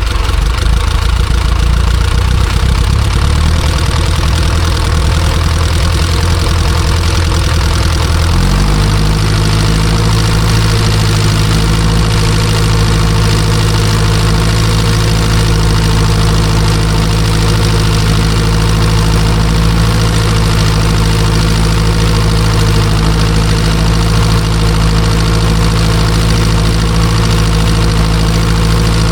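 Ursus C-360 tractor's four-cylinder diesel engine running steadily with a knocking diesel clatter. About a third of the way in the engine note steps up slightly and then holds at the higher speed.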